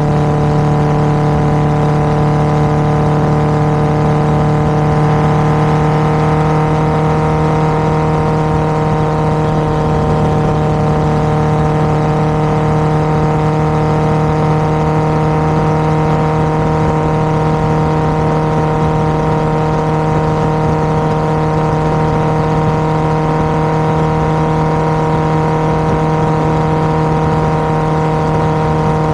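Honda CBR1000RR inline-four engine running at a steady speed through an aftermarket SC-Project exhaust, giving one even, unchanging exhaust note.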